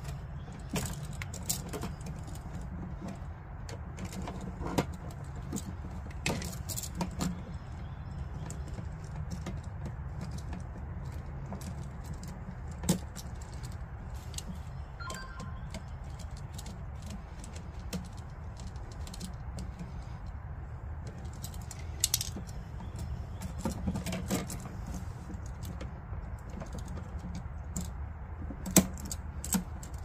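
Scattered small metallic clicks and clinks of pliers, a screwdriver and a switch's metal parts as wire ends are shaped and fastened under the switch's bronze terminal screws, over a steady low background rumble.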